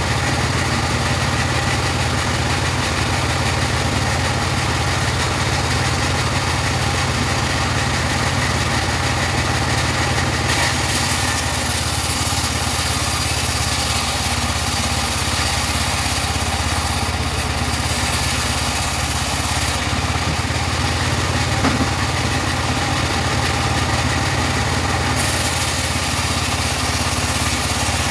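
The engine of a portable bandsaw sawmill running steadily while it saws teak. A brighter hiss joins it from about a third of the way in, drops out briefly, and stops a few seconds before the end.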